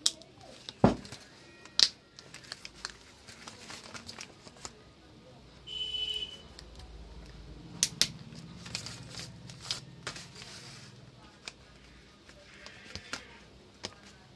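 Plastic clicks and snaps from the housing of a Sony Bluetooth neckband headset being pried open by hand, in irregular sharp bursts, with a brief high beep about six seconds in.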